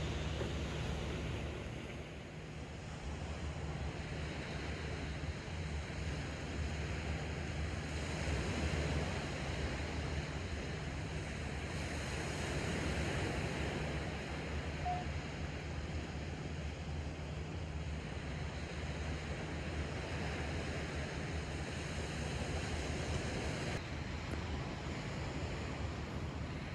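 Sea surf washing on the shore: a steady rush of waves that swells and eases.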